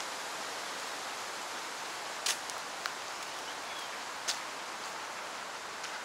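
Steady outdoor hiss of a park's ambience, with a few sharp clicks about two and four seconds in.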